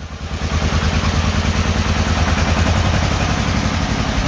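1948 John Deere Model M's two-cylinder engine running with a steady, even beat on its first start after a rebuild, growing a little louder in the first half second.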